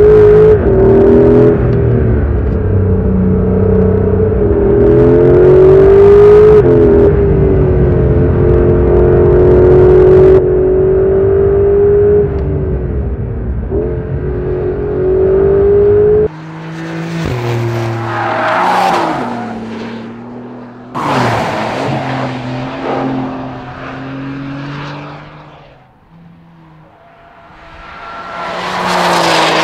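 Porsche 911 Carrera GTS Hybrid's 3.6-litre flat-six engine and exhaust under hard track driving, its pitch rising and falling through revs and gear changes. About sixteen seconds in the sound changes abruptly to the car heard going past, in swells that rise and fade several times.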